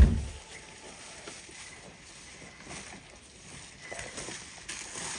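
A single heavy thump right at the start, then faint rustling of plastic shopping bags being carried, with a few light ticks.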